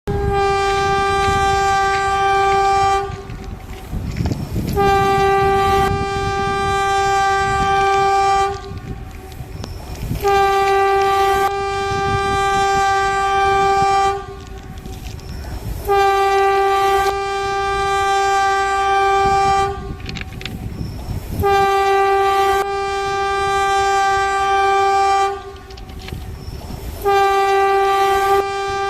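Indian train horn sounding six long blasts on one steady pitch, each about three to four seconds, with short gaps between them. The rumble and clatter of the moving train fill the gaps.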